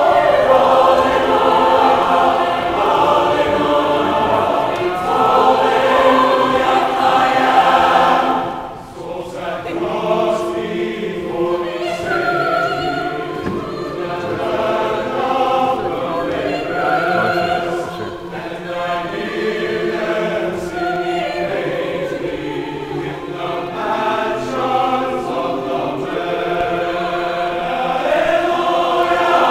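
Mixed-voice collegiate choir singing a hymn arrangement unaccompanied, full and loud at first, with a short break between phrases about eight seconds in, then carrying on more softly.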